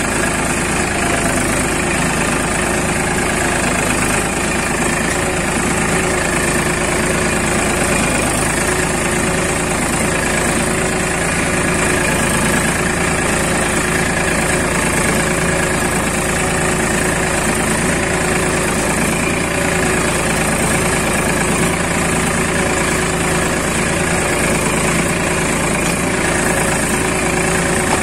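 Escorts tractor's diesel engine running steadily under load while pulling a disc plough through turf.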